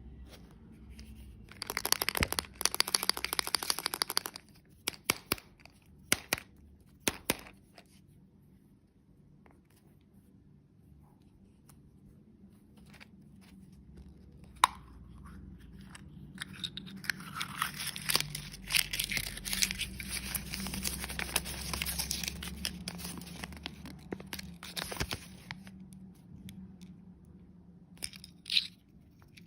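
Plastic candy packaging being crinkled and torn open by hand. A burst of crinkling comes about two seconds in, then a few sharp clicks, then a longer stretch of crinkling and tearing in the second half.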